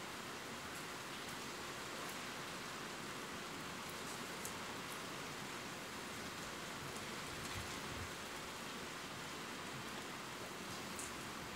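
Steady rain falling, an even hiss with a few faint ticks of single drops.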